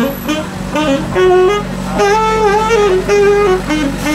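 Saxophone playing a melody of short separate notes, with one longer wavering note about two seconds in, over a steady low engine hum from an idling vehicle.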